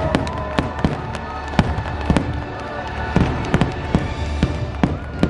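Fireworks bursting in quick succession, a rapid string of sharp bangs several times a second, with the show's music playing underneath.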